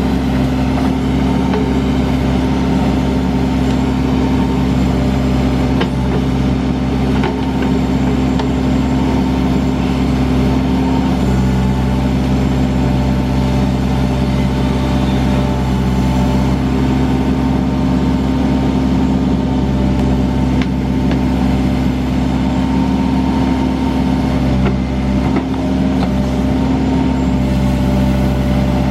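Diesel engine of a Case 580 Super N backhoe loader running steadily, its note shifting slightly about a third of the way in and again near the end, with a few faint knocks.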